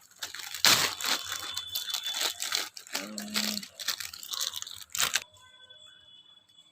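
Plastic packaging crinkling and rustling with sharp crackles as it is handled and pulled apart, stopping abruptly about five seconds in.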